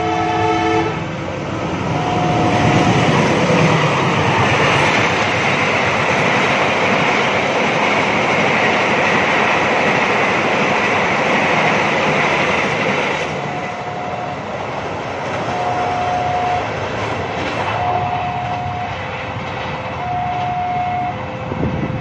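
A train horn sounds briefly, then a passenger train passes close by, its wheels running loud on the rails. About 13 seconds in the train noise drops off suddenly, and a railway level-crossing warning alarm chimes in a slow alternating two-tone pattern over fainter train noise.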